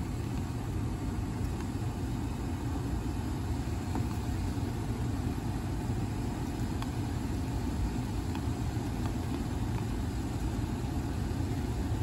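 Air handler blower motor running with a steady low drone, switched on by jumping the thermostat R and G wires, which shows 24 volts on R and a good blower motor. A couple of faint ticks are heard in the middle.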